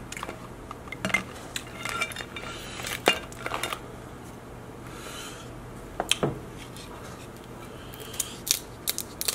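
King crab legs handled in a glass bowl: scattered clicks and knocks of hard shell against glass, then near the end a quick run of clicks as kitchen scissors snip through a crab leg's shell.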